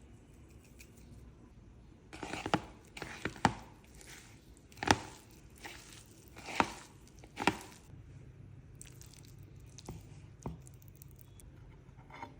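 Knife chopping food on a cutting board: about seven sharp, uneven chops in a run, then a couple of light taps.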